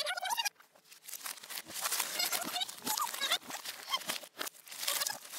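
Sped-up audio of a person packing a cardboard box: a voice raised into high-pitched chattering, mixed with quick crinkling and rustling of cardboard and packing material.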